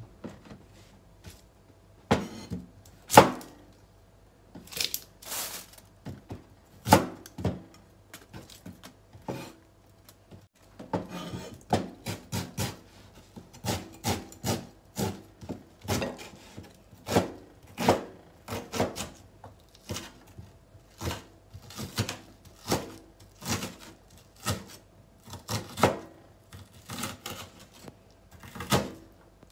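Chef's knife chopping an onion on a wooden cutting board: sharp knocks of the blade on the board, a few scattered ones at first, then a steady run of about two a second from roughly a third of the way in.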